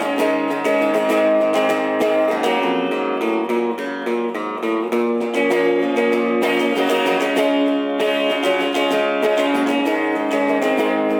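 Instrumental music played on a plucked string instrument, with a quick stream of picked notes.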